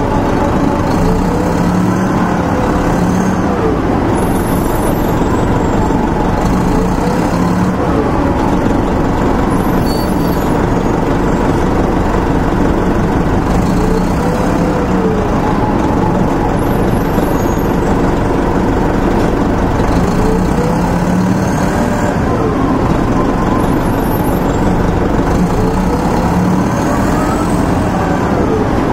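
Inside a 1996 Nova Bus RTS-06 under way: its Detroit Diesel Series 50 four-cylinder diesel and Allison VR-731 automatic transmission running steadily. A whine rises and falls in pitch every few seconds.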